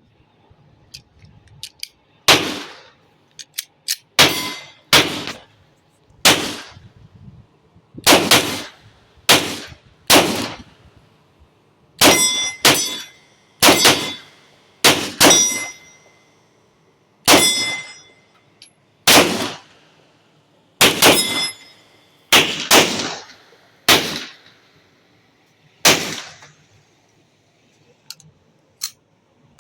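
Taurus G3 9mm pistol being fired shot after shot at an uneven pace, about nineteen shots roughly one to two seconds apart, with pairs close together around the middle. Several shots are followed by a brief ringing ping.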